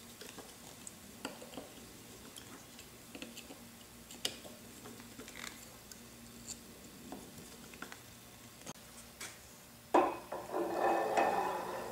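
Scattered light metallic clicks and ticks of a screwdriver working small screws that fasten the inner fan duct onto the end of the electric motor's rotor. About ten seconds in, a sudden clunk and then a couple of seconds of metal scraping as the rotor is slid onto the spindle shaft.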